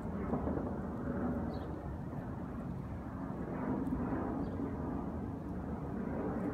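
Steady low rumble of distant engine noise, swelling a little about three and a half seconds in, with a few faint high chirps.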